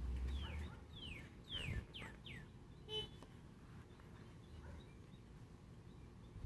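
A bird singing a quick run of about five clear whistled notes, each sliding down in pitch. A single short, sharp squeak follows about three seconds in, and there is a low rumble at the very start.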